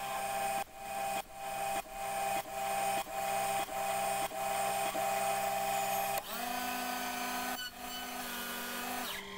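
Small CNC lathe running with motor whine, sped up fourfold, as the tool makes repeated passes on a brass part. A sound builds and cuts off sharply about every 0.6 s. About six seconds in the surges stop and the machine runs steadily with a changed whine.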